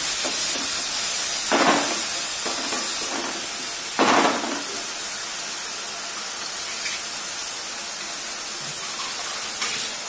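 Finely chopped onions sizzling in hot oil in a kadai, a steady hiss. A wooden spatula stirs and scrapes them through the pan twice, about one and a half and four seconds in.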